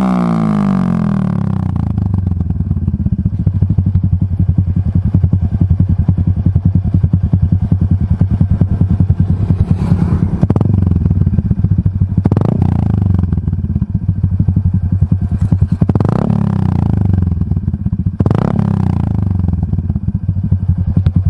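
Honda XRM RS 125's single-cylinder four-stroke engine running through an Exos R5 Pro exhaust with the silencer removed. It drops from a rev to a loud, rapid, pulsing idle, then takes four short throttle blips in the second half.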